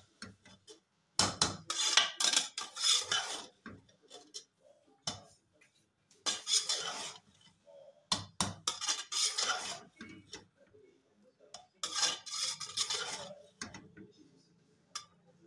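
A metal spoon scraping and knocking against the sides of an aluminium pressure-cooker pot as spaghetti is stirred and tossed. The scraping comes in about five bursts of a second or two, with short pauses between them.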